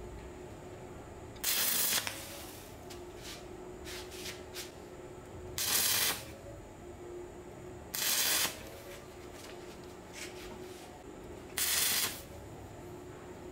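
Stick (arc) welder crackling and hissing as the electrode arc is struck on a steel bolt in short runs of about half a second, four times, building up weld on the bolt head. Faint crackle and a steady hum between the runs.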